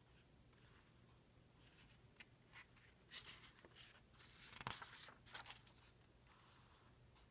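Faint paper rustling as a page of an old newsprint comic book is turned by hand, with a sharper crackle of the page flipping over about four and a half seconds in.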